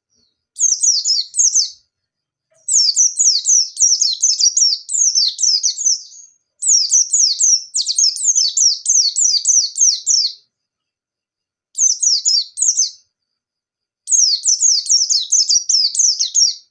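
Pleci (white-eye, Zosterops) singing in its fast 'nembak' style: five bursts of rapid, high, downward-sweeping notes, each lasting one to four seconds, with short silences between.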